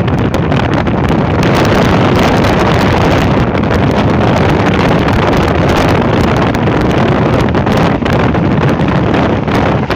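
Wind buffeting the microphone over the steady rushing road noise of a car driving at motorway speed.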